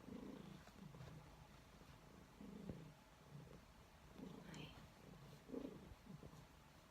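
A domestic cat purring close by, faint and low, rising and falling in pulses about once a second with each breath.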